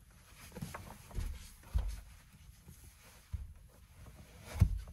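Muffled low thumps and knocks of boots being handled in a cramped wooden camper space: four short bumps, the loudest near the end.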